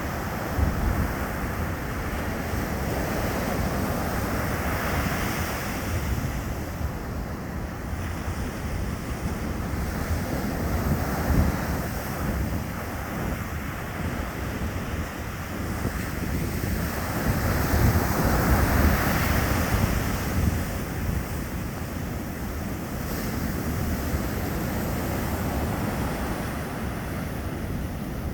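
Ocean surf breaking and washing up a beach, a continuous rush that swells as waves break, loudest about 18 to 20 seconds in, with wind buffeting the microphone.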